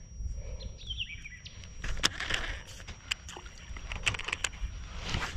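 Kayak fishing handling noise: scattered sharp clicks and knocks of tackle against the kayak, and a fleece sleeve brushing over the chest-mounted camera's microphone.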